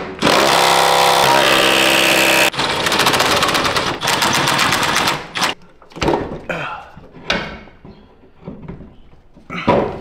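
Cordless power tool running bolts in for the Hydro Boost brackets on a truck's firewall: two long runs of rapid mechanical whirring and hammering, the pitch dropping about a second in. Lighter metal clunks and handling of parts follow.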